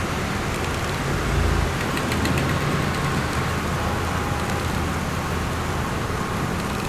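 Road traffic on a wet, snowy street: a pickup truck rolls slowly past close by with a low engine hum, over a steady hiss of tyres and traffic. A brief low thump comes about a second and a half in.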